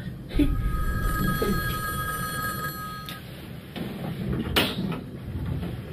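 A telephone rings once: a steady two-tone ring lasting about three seconds. A sharp click follows a little later.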